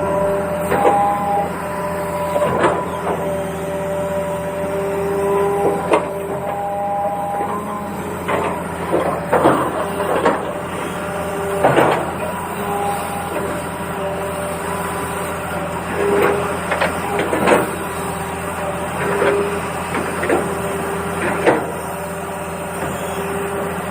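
Small geared electric motors of radio-controlled construction models whirring, their pitch stepping as they start, stop and change load, over a steady low hum. Scattered scrapes and clatter of soil and sand run through it.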